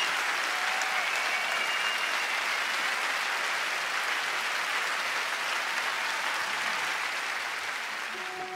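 Audience applauding steadily, dying down slightly toward the end.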